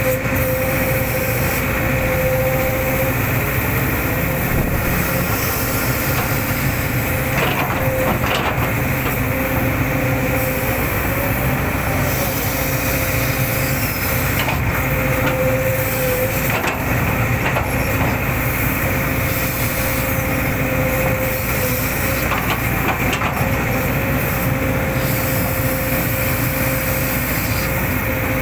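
Hitachi hydraulic excavator running steadily under work, with a constant high whine over the engine and a few short knocks and cracks from the digging around the middle.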